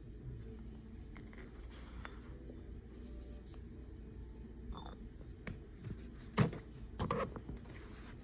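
Handling sounds: light scrapes and small clicks, with two louder sharp knocks about six and seven seconds in.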